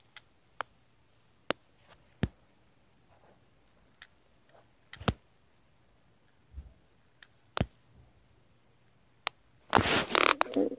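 Stomach gurgling, picked up through a phone microphone pressed against a shirt over the belly after drinking water: scattered sharp pops and clicks, then a longer, louder burst of noise near the end.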